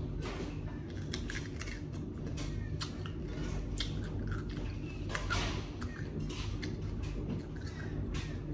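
A whole pickle being bitten and chewed close to the microphone: irregular crisp, wet crunches.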